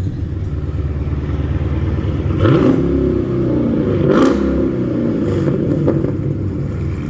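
Car engine idling loud through an exhaust with the catalytic converters gutted and the mid-pipes and resonator deleted, just after starting. It is revved briefly twice, about two and a half and four seconds in.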